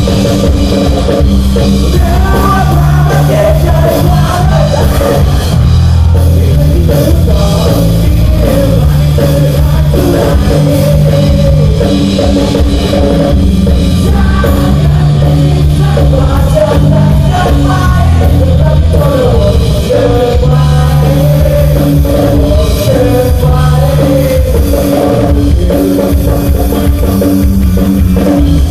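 Live rock band playing loudly with drums, guitar and a male singer, heard from among the audience at a stage show.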